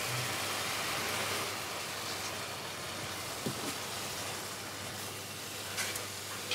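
Sauerkraut and mushroom pierogi filling sizzling steadily as it fries in a pan, with a few light clicks of a wooden spoon against the pan.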